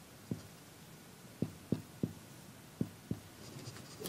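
Marker pen knocking against a whiteboard as a sum is written on it: about six soft, short taps in two quick clusters.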